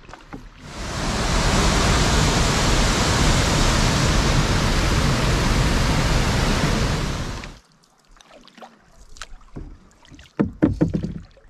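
Rushing water of a small river tumbling over rocks in rapids: a loud, steady rush that starts about half a second in and cuts off abruptly after about seven seconds. After it, quieter splashes and knocks of a canoe paddle dipping.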